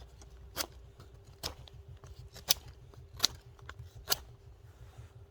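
Carbon steel pocket-knife blade whittling a dry piece of hardwood, with about five crisp cuts roughly a second apart.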